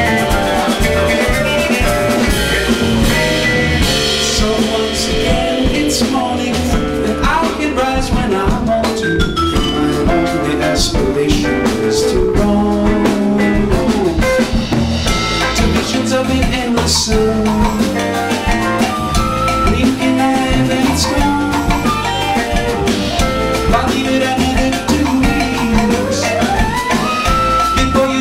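Live band playing an instrumental passage: a drum kit keeps the beat under guitar, bass and held melody notes. One melody note slides up in pitch near the end.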